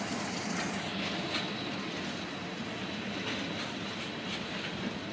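Freight train rolling past, a steady rumble of steel wheels on the rails, with a few faint clicks as wheels cross rail joints.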